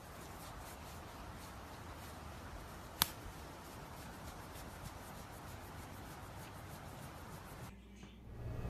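Hand scratching and rubbing a fox's fur, a soft steady rustle, with one sharp click about three seconds in.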